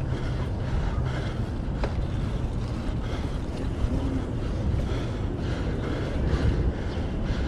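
Steady wind rumble on the microphone of a camera on a moving bicycle, with road and traffic noise beneath it.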